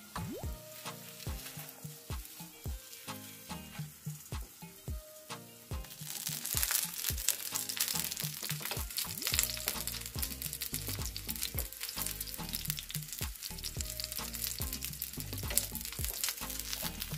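Hot oil sizzling and crackling around a meat-filled raw-dough börek (çiğ börek) frying in a pan, quieter at first and much louder and denser from about six seconds in. Background music plays throughout.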